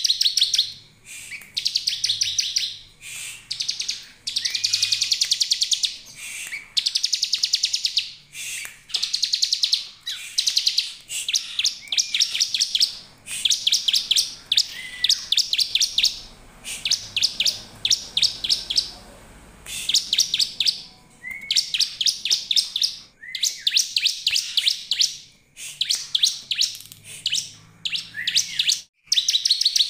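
Bar-winged prinia (ciblek) singing: repeated phrases of rapid, high, dry ticking notes, each about a second long with brief gaps between them. Some phrases open with a short upslurred note.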